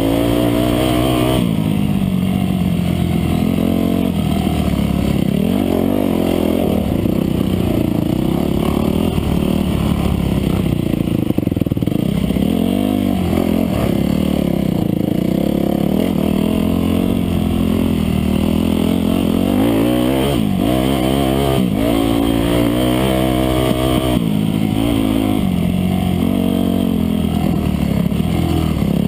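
Dirt bike engine running hard under a rider, its pitch rising and falling constantly as the throttle is opened and closed through gear changes on a twisting off-road trail, with quick revs about twenty seconds in.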